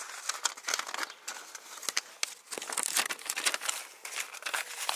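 Old tractor wiring harness being handled and tugged loose: an irregular crinkling rustle of wires and their coverings, with many small sharp clicks.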